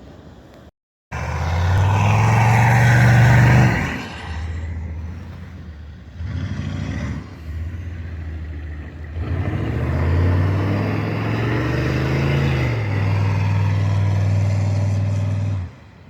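Duramax diesel pickup engine revving in repeated surges: a rev held about three seconds, short blips around the middle, then a long rising rev that is held and cuts off suddenly near the end. The sound drops out completely for a moment about a second in.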